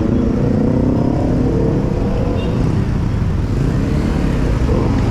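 A motor vehicle engine running over a steady low rumble, its pitched drone clearest in the first two seconds.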